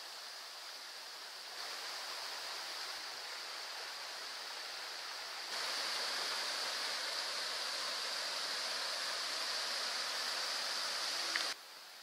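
Shallow woodland stream running over stones: a steady rush of water that steps louder about a second and a half in and again about five and a half seconds in, then drops away suddenly near the end.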